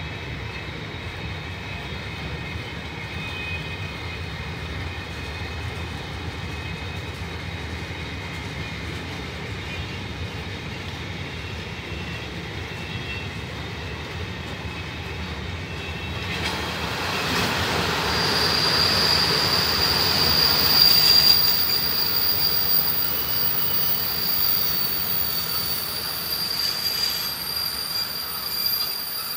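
Covered freight wagons of a long freight train rolling past with a steady low rumble. About halfway through the sound grows louder and a high, steady wheel squeal sets in and holds almost to the end.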